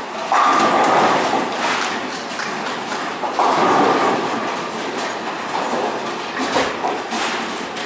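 Bowling alley noise: a steady rumble of bowling balls rolling on the lanes and through the ball return, swelling twice, with a few sharp clacks near the end.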